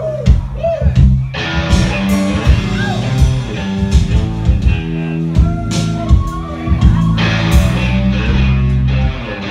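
Rock band playing live: electric guitars and drums with keyboards, a full, steady groove.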